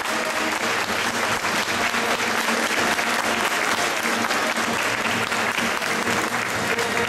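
A large crowd applauding inside a church: dense, steady clapping of many hands that keeps up without a break.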